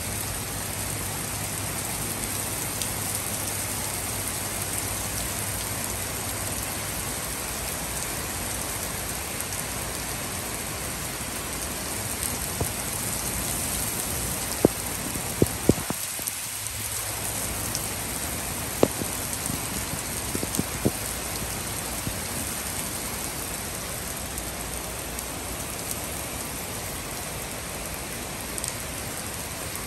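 Steady rain falling on a wooden deck, railing and surrounding trees, an even hiss with a few sharp clicks about halfway through.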